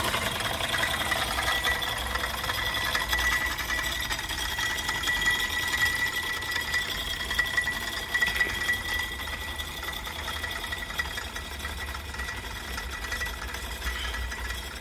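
Restored treadle fret saw running under motor power, its blade reciprocating rapidly with a steady high whine.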